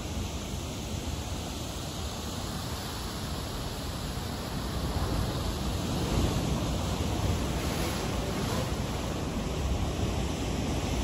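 Ocean surf washing against a rocky shore, with wind buffeting the microphone; the wash swells a little about halfway through.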